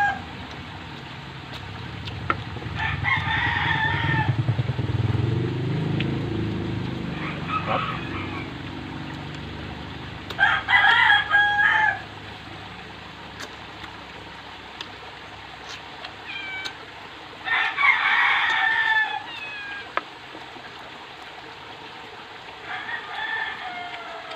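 Roosters crowing in the background, about five crows of a second or so each, several seconds apart. A low rumble swells and fades under the first few crows.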